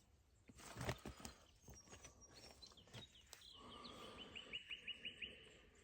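A small bird chirping faintly in the background, a quick run of short chirps in the second half, with a few faint knocks about a second in.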